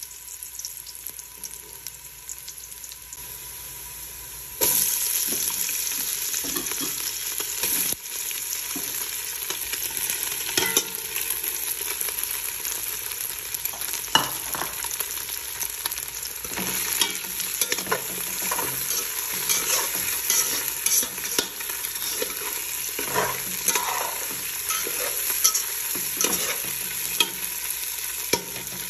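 Sliced onion and garlic sizzling in oil in an aluminum pot. Sliced hot dogs are dropped in about five seconds in, and the sizzle suddenly gets much louder. A spoon scrapes and clicks against the pot as it is stirred.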